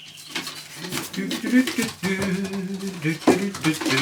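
Young pigeons cooing in a rolling, wavering low coo, with a few sharp knocks and rustles of birds moving about the loft.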